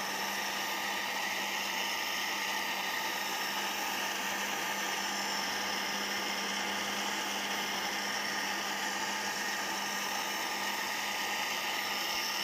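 Electric blender running steadily, its motor whirring through a jug of blended strawberry juice, with a constant low hum and no change in speed.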